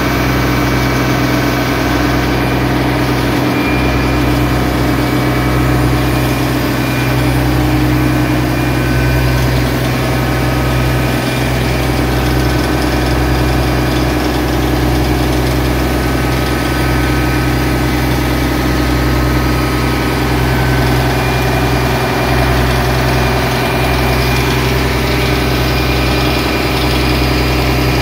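A boat's engine running steadily underway, a constant deep drone with even tones layered above it, mixed with the rush of water along the hull.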